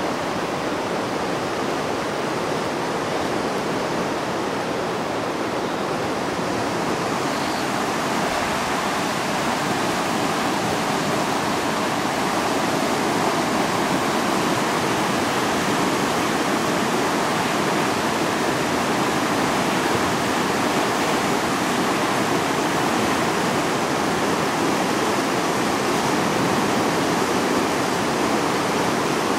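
Flooding river rushing past: a steady, dense noise of fast, turbulent floodwater, growing a little louder several seconds in.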